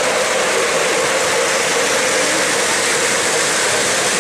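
O-gauge model trains running on three-rail track: a steady noise of wheels rolling on the rails.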